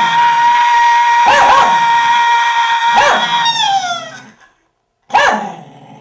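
A poodle barking in short, sharp bursts over a man's long, steady, high-pitched scream. The scream drops in pitch and dies away about four seconds in. After a brief hush, one more loud bark comes near the end.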